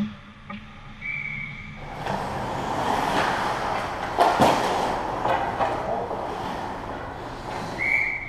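Ice hockey play close to a goal: skates scraping the ice, with a sharp knock of stick or puck about four and a half seconds in. Short referee whistle blasts come about a second in and again at the very end.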